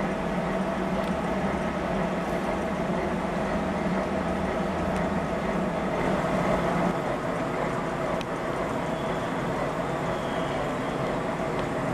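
A railway train running, a steady drone whose low engine note drops away about seven seconds in. A faint high whine comes in near the end.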